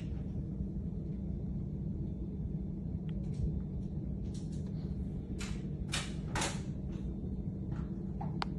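A steady low rumble with a constant hum, and a few short hissing rustles about two thirds of the way through.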